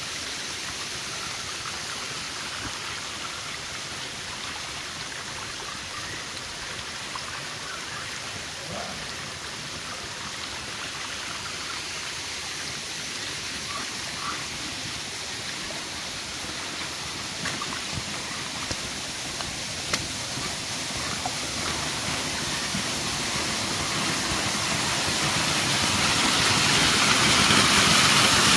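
Steady hiss of rain falling, with a few faint ticks. It grows louder over the last few seconds.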